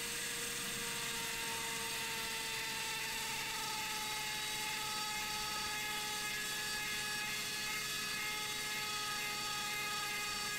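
Dremel rotary tool running steadily with a high whine while a small polishing wheel with compound buffs scratches out of a watch case back. The pitch sags slightly over the seconds.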